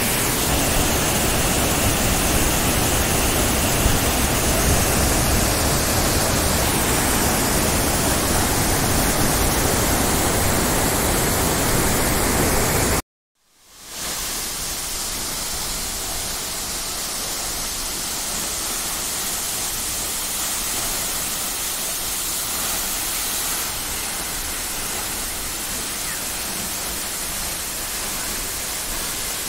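Steady rushing roar of a tall waterfall crashing onto rocks. It drops out for a moment about halfway through, then returns a little quieter.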